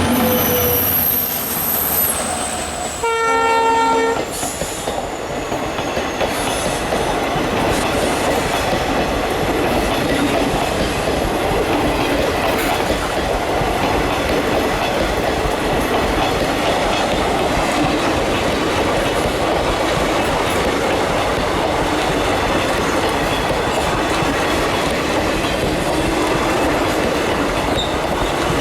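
An Indian Railways EMD diesel locomotive gives one horn blast of about a second, a few seconds in, then the train rolls past with steady wheel-and-rail noise and the clickety-clack of coaches over rail joints.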